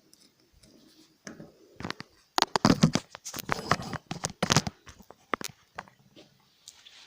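A run of irregular knocks and taps, bunched in the middle few seconds, from the hard drive and tools being moved and handled on a hard surface.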